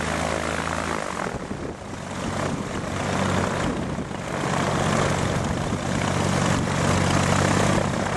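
Chevrolet V8 aircraft engine conversion on a test stand running with its propeller, just after starting. It dips briefly about a second in, then is run up, growing louder and slightly higher in pitch.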